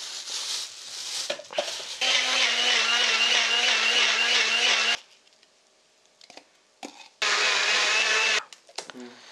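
Small bullet-style personal blender grinding apple chunks: after some handling noise, the motor runs steadily with a slightly wavering hum for about three seconds, stops, then runs again in a short burst of about a second.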